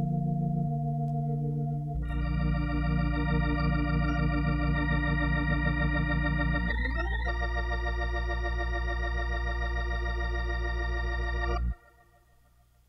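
Hammond B3 organ playing long sustained chords with a slight waver in the tone. A fuller chord comes in about two seconds in, and a quick upward glide follows around seven seconds. The chord cuts off abruptly near the end.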